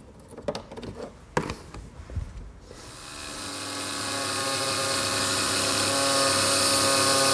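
A few light knocks, then a power tool starts about three seconds in and runs with a steady, high whine that grows gradually louder.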